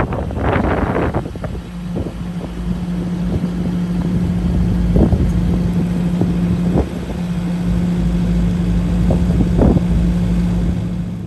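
Boat motor running at a steady pitch as the boat cruises, with wind gusting on the microphone in the first second or so and a few short thumps.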